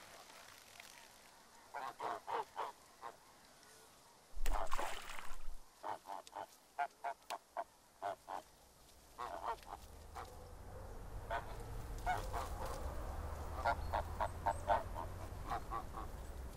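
Geese honking in quick series of short calls, with a louder noisy burst about four seconds in. A low steady hum builds up under the calls in the second half.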